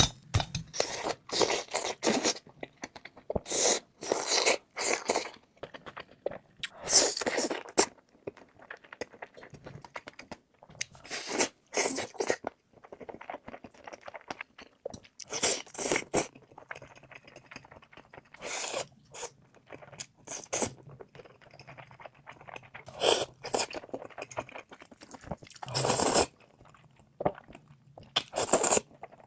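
Close-miked eating: crunchy bites and chewing, loud crunches coming in clusters every second or two, with some scraping between them.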